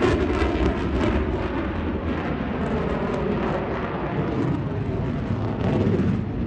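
Fighter jet's engine roar, a steady rumbling jet noise with a deep low end that eases a little at first and swells again near the end.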